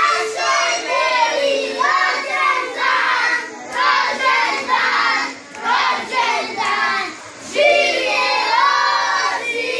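A group of children and adults singing a birthday song together, in sung phrases with short breaks between.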